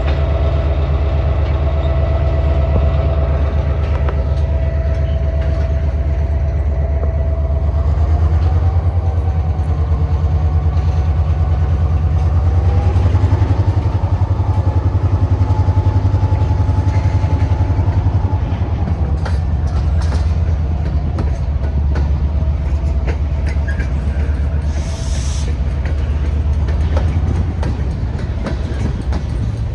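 Diesel freight train running close by: a heavy low engine rumble with a steady whine that climbs in pitch in two steps through the first half and drops back a little past the middle. Wheels click over rail joints through the second half, with a short hiss about 25 seconds in.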